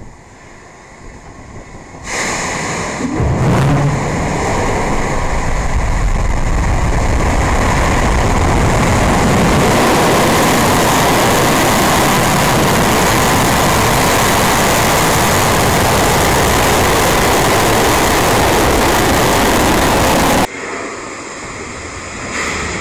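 Atlas V 401 rocket's RD-180 engine igniting and lifting off, heard from a camera on the launch pad: a sudden onset about two seconds in, a low thud a second later, then a loud, steady roar. The roar cuts off abruptly near the end, leaving a quieter rumble.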